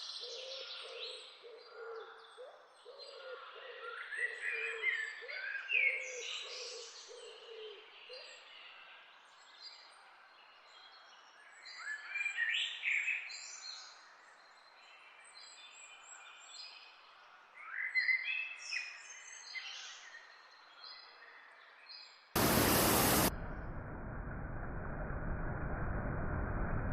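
Several wild birds singing and chirping in quick whistled phrases, with a low call repeated about once a second through the first eight seconds. About 22 seconds in, a loud burst of noise lasting about a second cuts in, followed by a steady rushing noise.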